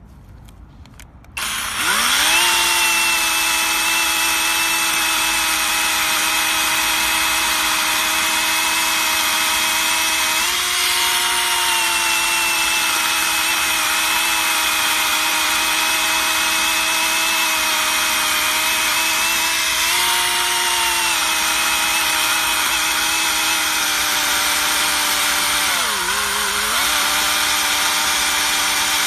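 Small handheld electric chainsaw starting about a second in, its motor whining up to speed and then running steadily as the chain cuts through a log. Near the end the pitch sags briefly and recovers as the chain slows in the cut.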